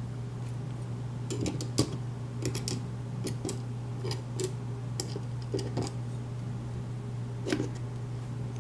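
Scattered small metallic clicks and taps from the parts of a pin-tumbler lock being handled as it is taken apart, over a steady low hum.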